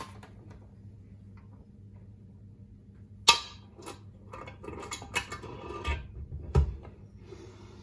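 Metal clinks and knocks of a BSA A65 crankshaft and its main bearing being worked into the crankcase half: one sharp knock about three seconds in, then a run of smaller clinks and taps.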